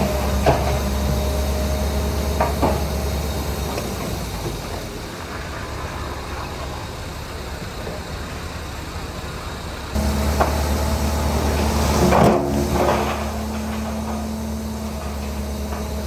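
Heavy diesel machinery running steadily, with sharp metal clanks now and then and a louder cluster of clanks about twelve seconds in.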